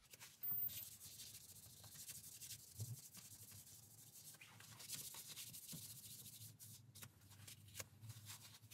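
Faint rubbing and scuffing of a kitchen-style cloth wiped along a lathe's steel bed slideways, cleaning rust dissolver gel and WD-40 off the rusted bed, with a brief louder scuff about half a second in.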